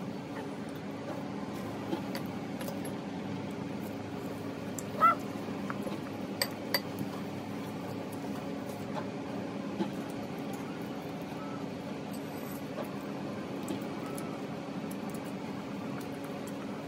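Light clinks of a plastic spoon against a dish as a toddler eats, over a steady low room hum, with one short rising high-pitched squeal about five seconds in.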